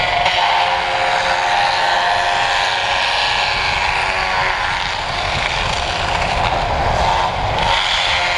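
Excavator-mounted stump grinder chewing into trees and stumps under load: the grinder's spinning cutter head gives a steady whine that wavers slightly in pitch, over the excavator's diesel engine rumble.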